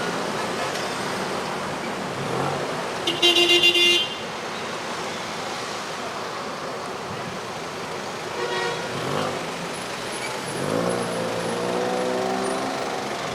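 Road traffic going by, with a car horn sounding in a quick run of short toots about three seconds in. Near the end a vehicle accelerates past, its engine rising in pitch.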